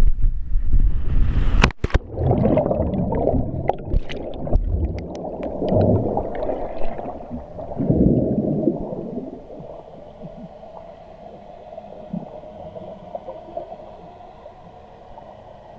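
Wind rushing past a GoPro during a cliff jump, then a sharp splash about two seconds in as it hits the water. It is followed by muffled underwater bubbling and gurgling in surges for several seconds. The sound then settles into a quieter steady underwater hum, heard through the camera's housing.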